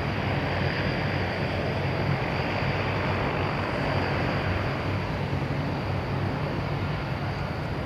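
Embraer KC-390's twin IAE V2500 turbofan engines in a low flypast: a steady jet roar with a thin high whine running through it.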